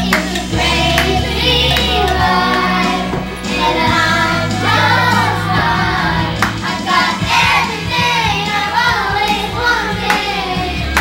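Karaoke: voices singing along to a loud band backing track, with hand clapping.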